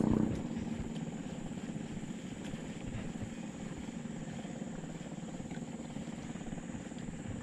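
A small engine running steadily. Its level drops sharply in the first half second, as if throttled back, then it carries on lower and even.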